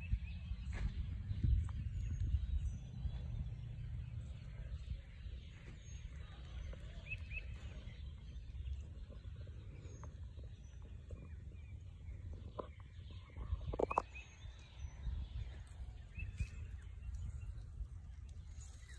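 Outdoor garden ambience: small birds chirping now and then over a low steady rumble, with a couple of soft knocks later on.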